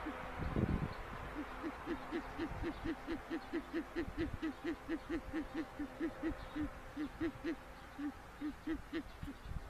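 Owl giving a long, rapid run of short low hoots, about four a second, for around seven seconds. A couple of low bumps are heard just before the hooting starts.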